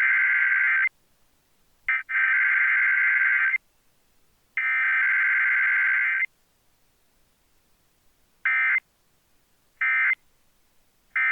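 Emergency Alert System Required Weekly Test data bursts: three long, harsh buzzing SAME header bursts about a second apart, then, after a pause of about two seconds, three short end-of-message bursts. It is the digital code of the weekly test, with no attention tone or voice message.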